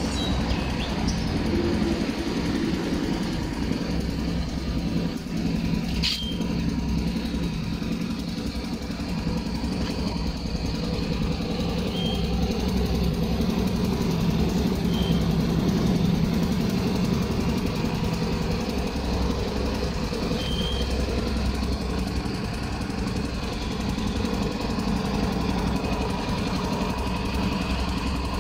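Modenas Elegan 200 scooter engine idling steadily.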